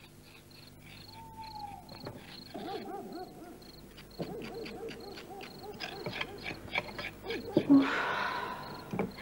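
Night-time country ambience: crickets chirping in a steady pulse, with short repeated hooting animal calls over them and a louder call about eight seconds in.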